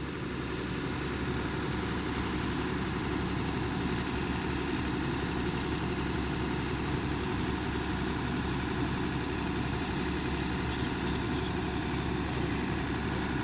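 Engine running steadily, getting a little louder over the first second and then holding level.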